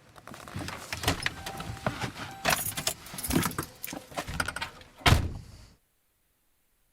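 Jangling, clicking and rattling of handled metal, keys or similar, ending in a loud thump about five seconds in, then a sudden cut to silence.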